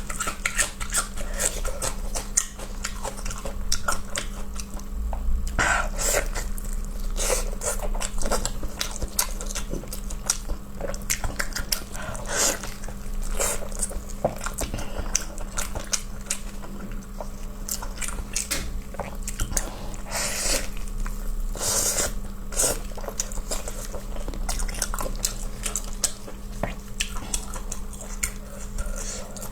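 Close-up eating sounds: a person biting and chewing pork stomach stuffed with pig brain, with many short mouth clicks and smacks over a steady low hum.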